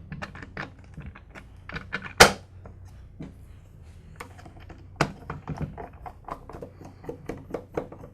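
Belt cover being fitted back onto a Porter Cable 352VS belt sander: a run of small clicks and taps from handling the cover and its fasteners, with two sharper knocks about two and five seconds in.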